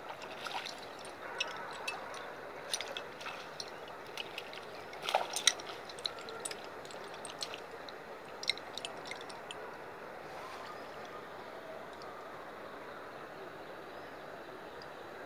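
Water splashing and dripping as a wet cast net is handled and lifted in pond water: a run of small splashes and drips, loudest about five seconds in, thinning out after about nine seconds.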